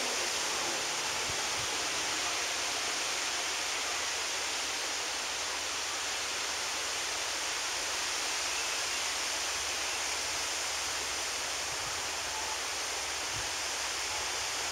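Steady, even outdoor hiss with no distinct events. The approaching diesel locomotive does not stand out from it.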